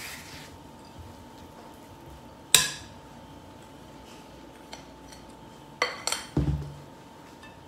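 Utensils clinking against glass mixing bowls: one sharp ringing clink about two and a half seconds in, then two quicker clinks near six seconds, followed by a dull knock as a bowl is set down on the table.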